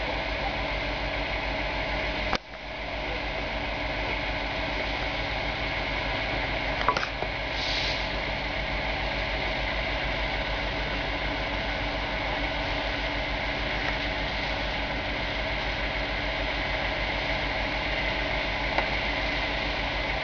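Steady engine drone from fire engines running at a fire, their motors and pumps working. Sharp clicks about seven seconds in and again near the end.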